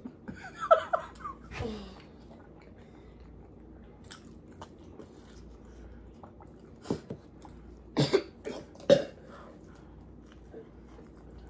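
A few short coughs, the loudest about eight and nine seconds in, with chewing between them: a reaction to the burn of a hot pepper from the pizza box.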